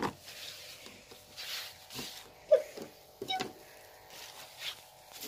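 Light plastic clicks and knocks from a toy microwave in a children's play kitchen being worked by hand, with a sharp click right at the start as its door is shut or a button is pressed. A short squeak about halfway through.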